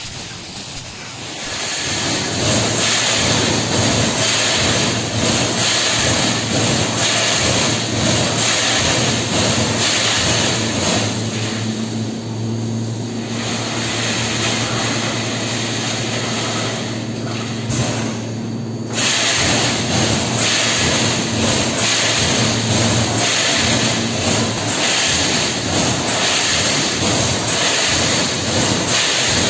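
Automatic pneumatic wire mesh welding machine running and welding steel wire mesh: a dense, rapid crackle of the welds with a steady low hum underneath. It becomes loud about two seconds in, and the hum drops out near the end.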